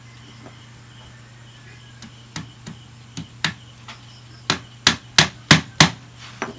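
Hammer driving a staple through welded wire mesh into a wooden frame. About two seconds in come a few light taps to start it, then several hard blows about three a second.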